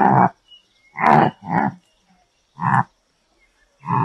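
An antelope calling: five short, rough calls, each about a third of a second long, with gaps of about a second between them. The second and third calls come close together.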